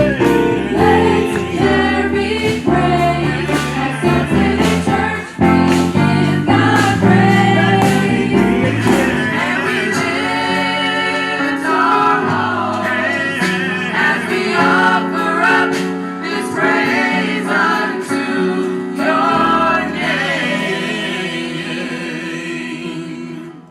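Gospel choir singing over a band with bass and drums.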